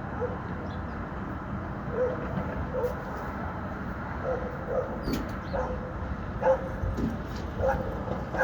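A dog barking repeatedly in short, pitched barks, about ten in all, over the steady rumble of city street traffic.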